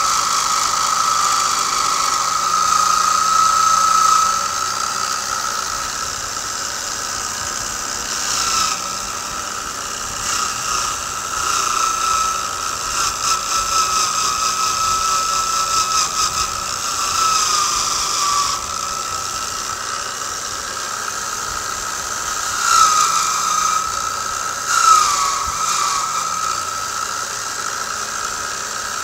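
Drill motor spinning a fine-wire carding wheel with a steady whine, as a blued rifle barrel is worked back and forth against it. The wire brushes off the loose magnetite oxide left by steaming. A scratchy brushing hiss comes and goes with the passes, with two short, sharper scrapes late on.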